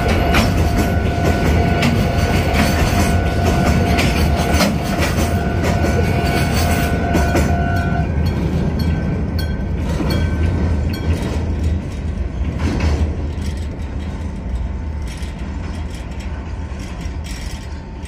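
Freight train's container wagons rolling past over a steel girder bridge, with clattering knocks from the wheels, the sound easing off as the last wagons move away. A steady ringing tone sounds with it and stops abruptly about eight seconds in.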